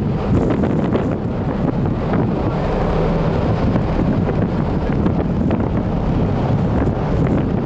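Steady wind buffeting the camera microphone on the open deck of a moving ferry, a dense low rumble with no break.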